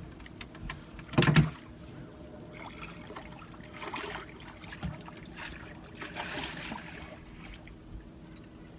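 Handling noises aboard a small fishing boat: a loud knock against the boat about a second in, then softer rustles and scrapes over a steady background.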